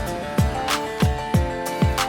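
Background music with a steady, deep kick-drum beat under held notes.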